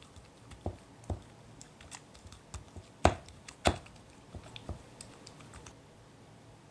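Wooden spatula knocking and scraping against a glass mixing bowl while beating egg into a stiff choux-style churro dough: a scatter of irregular taps, with two louder knocks a little past three seconds in, about half a second apart.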